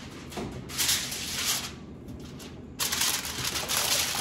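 Aluminum foil rustling and crinkling as a sheet is handled and pressed over a glass baking dish: a short crinkly stretch about a second in, then steady crinkling from about three seconds in.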